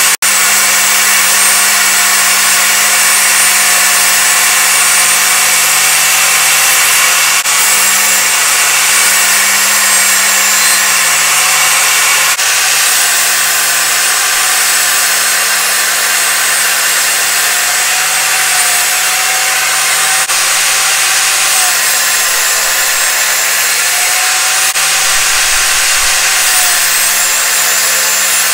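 DeWalt DWE7492 jobsite table saw running steadily at full speed, a loud even motor-and-blade noise with a faint wavering whine.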